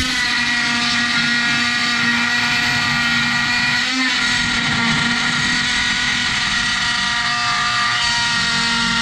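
Cordless oscillating multi-tool buzzing steadily at one pitch as its blade cuts through the sheet-steel windage tray of an LS engine, with a momentary break about four seconds in.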